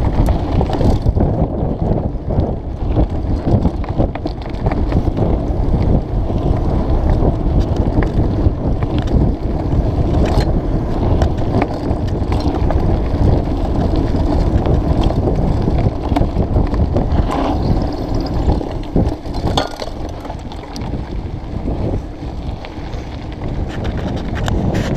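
Mountain bike riding a dirt singletrack: a steady loud rumble of tyres on the trail, with scattered knocks and rattles from the bike and wind on the microphone.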